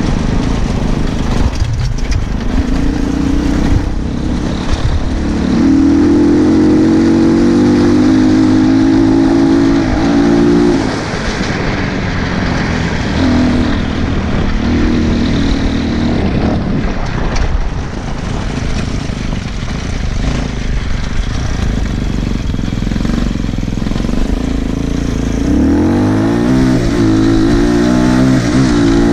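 200cc dirt bike engine running under riding, its pitch rising and falling with the throttle, then revving up sharply near the end.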